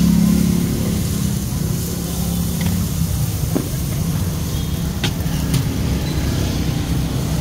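Steady low rumble of motor traffic running close by, with a humming engine note near the start and a few light clicks later on.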